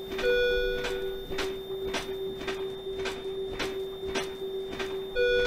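Electronic patient monitor sounding a steady flatline tone during CPR compressions. Short clicks come about twice a second in the compression rhythm, and a one-second electronic beep sounds just after the start and again near the end.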